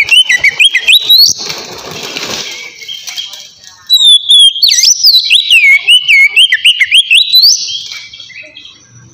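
Oriental magpie-robin (kacer) singing loud, clear whistled phrases of quick up-and-down notes, each phrase ending on a rising note; a second phrase starts about four seconds in.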